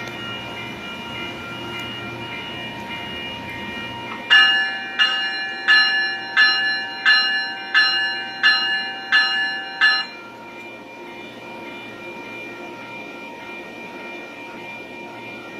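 A commuter train's bell strikes nine times, about one and a half strokes a second, starting about four seconds in and stopping after about six seconds. This is the warning rung as the train departs. Beneath it is the steady hum of the standing train.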